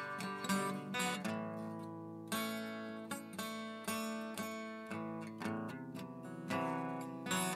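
Background music: an acoustic guitar playing plucked and strummed chords, each note fading after it is struck.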